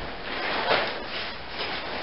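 Fabric and frame of a Coleman MAX Instant Tent rustling and rubbing in uneven swells as the folded tent is spread out.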